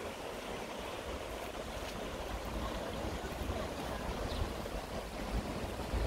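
Stream water flowing and rushing over its bed, a steady rushing noise with a low rumble beneath it.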